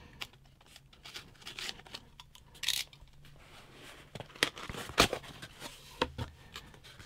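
A small blade slitting the tape on a cardboard box, then the cardboard lid lifted and folded open: scattered scrapes and rustles, with a few sharp cardboard knocks between about four and six seconds in.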